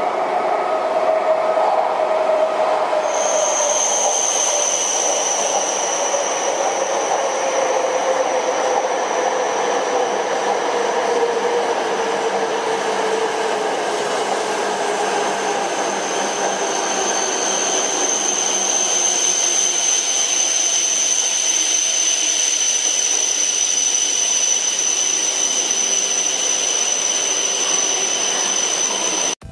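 E5 series Shinkansen bullet train passing through a station at speed: a long, steady rush of air and wheels. A lower hum slowly falls in pitch over the first ten seconds, and a high, steady whine comes in about three seconds in and holds almost to the end.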